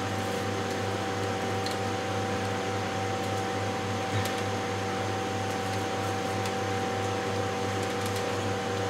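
Steady machine hum: a low drone throbbing about three times a second under two steady mid-pitched tones. There is a faint click about four seconds in.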